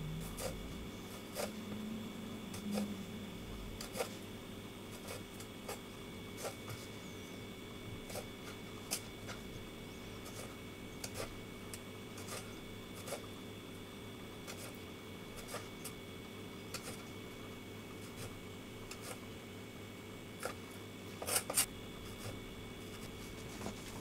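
Small paring knife cutting notches into thin apple peel on a wooden cutting board: scattered light clicks and taps as the blade cuts through the skin and meets the board, with a louder quick cluster of taps near the end, over a faint steady hum.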